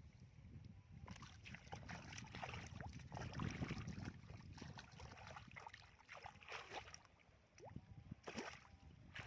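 Shallow muddy water sloshing and splashing in irregular bursts as hands work through the mud catching fish, over a steady low rumble.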